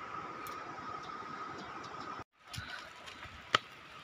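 Outdoor ambience: a steady hiss with a constant high-pitched drone that cuts off abruptly about two seconds in, followed by a quieter stretch with a few sharp clicks.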